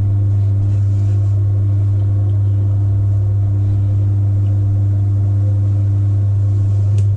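Steady low hum of an electric potter's wheel motor, with a brief click near the end.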